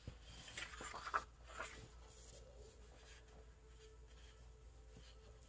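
Sheets of scrapbook paper being handled and slid over a cutting mat: a few soft rustles and scrapes in the first couple of seconds, then it falls nearly quiet.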